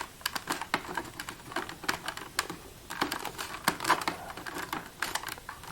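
Irregular light clicks and taps of a UV fluorescent tube being fitted and twisted in its twist-lock lamp holders inside an Accubanker D64 counterfeit detector, as it is worked to lock into place.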